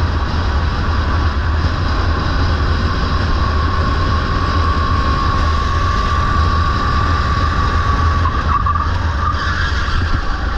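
Onboard sound of a Sodi rental go-kart running at racing speed: a continuous engine drone under heavy wind rumble on the microphone and tyre noise. A steady high whine rises out of it through the middle and wavers near the end.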